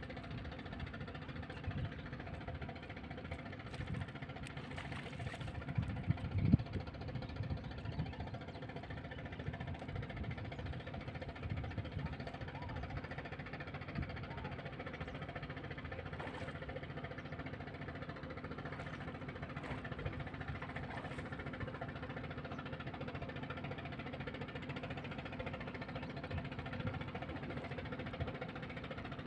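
Small engine running steadily, with a few louder low thumps about six seconds in.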